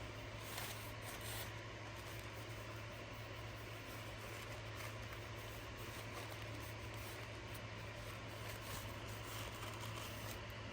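Faint rubbing and rustling of a paper napkin being rolled and pressed around a cardboard tube by hand, over a steady low electrical hum.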